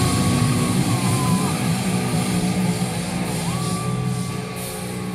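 Heavy metal band playing live in an arena, heard from the crowd: a long held high note over a dense, heavy low end, the volume slowly falling away.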